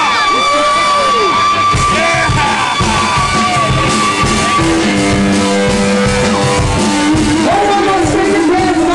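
Loud rock music with singing, drums coming in about two seconds in, while people in the crowd shout and sing along.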